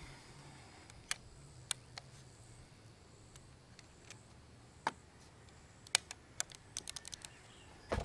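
Brocock Atomic XR .22 PCP air pistol's side-lever action being worked between shots: a scattered series of sharp mechanical clicks and clacks, a few spaced out and then a quicker run about six to seven seconds in.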